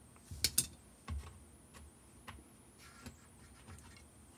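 Faint, scattered clicks and taps of small plastic and metal parts being handled: the card shuffler's plastic pieces and its brass leaf-switch contact. Two sharper clicks come about half a second in, then a few lighter ones.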